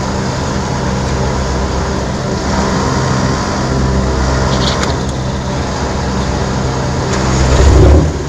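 A vehicle engine idling steadily, with a brief louder swell near the end.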